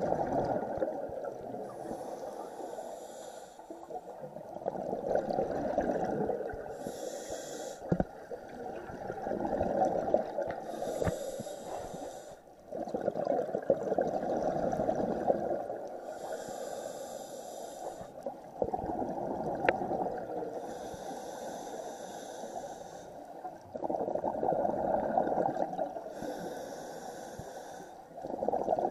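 Scuba diver breathing underwater through a regulator: a hissing inhale, then a louder gurgling burst of exhaled bubbles. About six breaths, one every four to five seconds.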